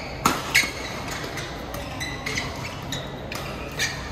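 Badminton rackets smacking a shuttlecock during a doubles rally. The two loudest hits come close together in the first half-second, then several lighter hits follow over the next few seconds, heard over the hall's background.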